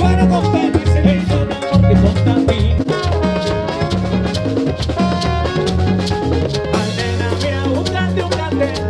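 Live salsa band playing: congas and maracas over a bass line and other instruments, with a long held bass note near the end.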